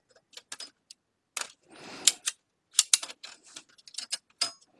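Irregular clicks, taps and light rattles of an Epson PictureMate printer's plastic chassis being handled and turned over, with a short scrape about two seconds in.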